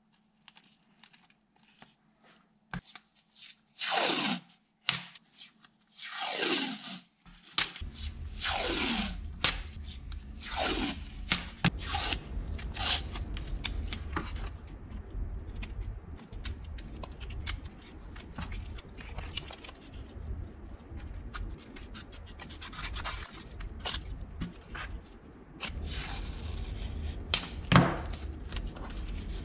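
Blue painter's tape pulled off the roll in several long pulls, each falling in pitch, then torn, crinkled and rubbed down by hand over a wrench. A steady low hum starts about eight seconds in.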